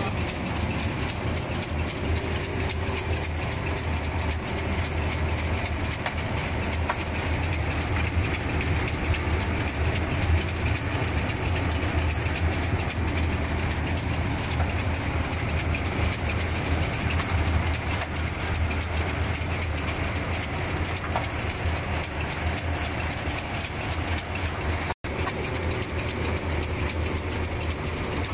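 French fries production line machinery running: a steady low motor hum with a continuous rattling haze from the stainless mesh-belt conveyors carrying cut potato strips. The sound drops out for an instant near the end.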